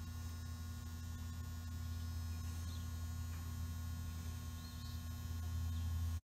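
Steady low electrical hum, like mains hum, with a couple of faint high chirps. It cuts off suddenly just before the end.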